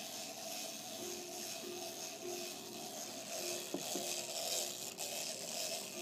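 Wind-up Santa toy's clockwork mechanism running with a faint, steady mechanical whir, joined about a second in by a thin tone that cuts in and out, with a couple of small clicks.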